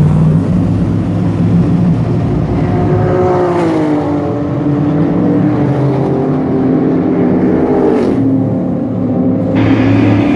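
Race car engine of a Cobra-style roadster running as the car pulls away, its note falling steadily over several seconds as it draws off.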